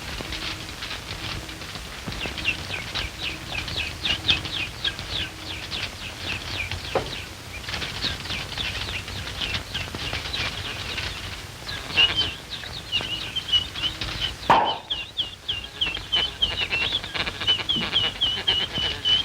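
Cartoon sound effect of rapid high-pitched chirping, many short falling chirps a second in long runs. It is broken by a sharp knock about a third of the way in and a louder thump about three-quarters through.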